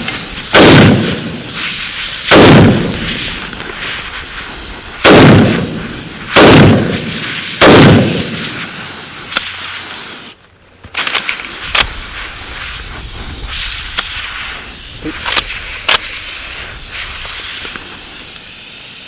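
MAS 49/56 semi-automatic rifle in 7.5×54mm firing five shots, one to three seconds apart, under a steady hiss of compressed air blasting sand at the action. After the last shot, about eight seconds in, the rifle stops firing: its sand-fouled bolt has not closed fully into battery. The hiss runs on with a few light clicks.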